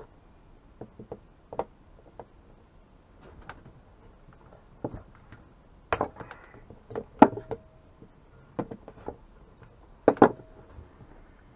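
Scattered clicks and knocks of a dismantled two-stroke chainsaw's plastic housing being handled and set against a wooden workbench, with a few louder knocks about six, seven and ten seconds in.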